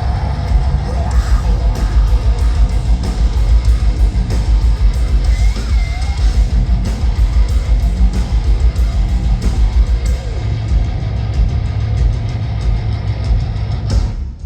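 Live heavy metal band playing loud, with heavy rapid drum hits, distorted guitars and yelled vocals. The music stops abruptly near the end.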